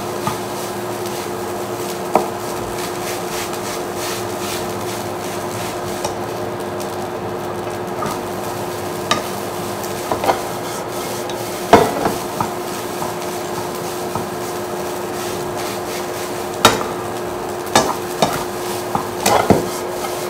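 A spatula scraping and stirring rice around a non-stick wok, with a light sizzle and a steady hum from the induction cooker underneath. Now and then the spatula knocks sharply against the pan, more often near the end as the wok is tossed.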